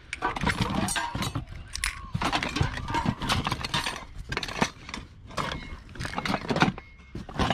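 Pieces of scrap metal clanking and clinking as they are rummaged through and handled, in a quick, uneven run of knocks.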